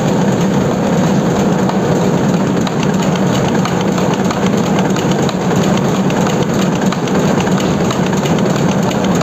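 Web-fed newspaper printing press running at speed, the paper web feeding through its folder rollers. It makes a loud, steady running noise with a low hum and a fast, fine clatter.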